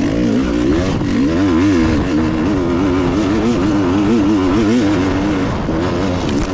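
Dirt bike engine running as the bike is ridden, its pitch rising and falling several times a second as the throttle is worked.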